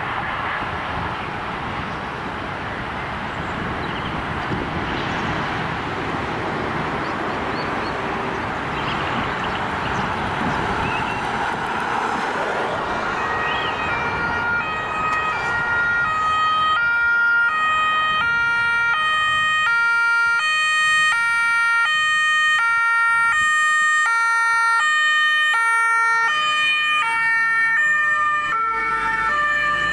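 Road traffic and engines passing. About halfway through, a German two-tone emergency vehicle siren (Martinshorn) starts up, switching back and forth between two pitches at a steady pace. It grows louder as the emergency vehicle approaches.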